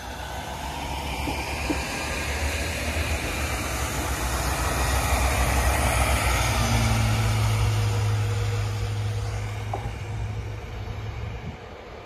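Arriva Alstom Coradia LINT diesel railcar passing close by and pulling away: a rumble of wheels on rail and the underfloor diesel engine that swells to a peak and fades. A steady low engine drone holds for several seconds in the second half and stops near the end.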